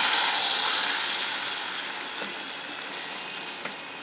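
Okra (bhindi) masala sizzling in a pan, the hiss gradually fading, with a couple of faint taps in the second half.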